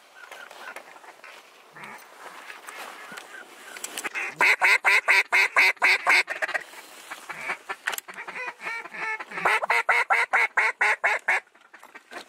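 Hand-blown mallard duck call: a loud, quick string of hen quacks, about five a second, starting about four seconds in, then a second, longer string of quacks that speeds up near the end.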